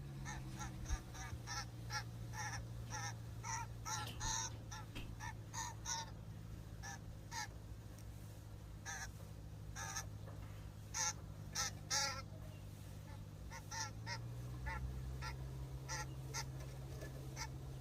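Common grackles calling: short calls in quick succession, about two a second for the first six seconds, then scattered. A steady low hum runs underneath and shifts up in pitch about fourteen seconds in.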